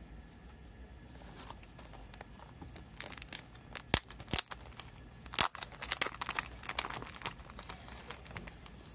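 Clear plastic shrink-wrap being peeled off a CD case, crinkling and crackling in a run of sharp, irregular crackles that starts about three seconds in.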